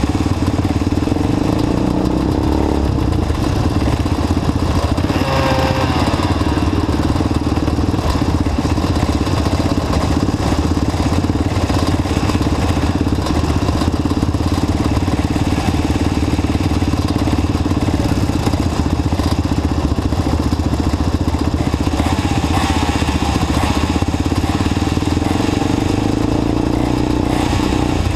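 Engines of several quads and three-wheeled ATCs idling steadily together while the machines stand lined up.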